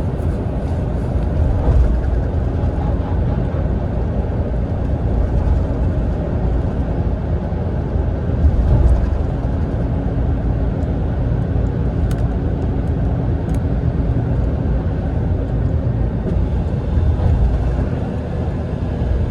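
Mitsubishi Fuso Aero Ace diesel coach cruising at expressway speed, heard inside the passenger cabin: a steady low rumble of engine and tyres, with a few light rattles.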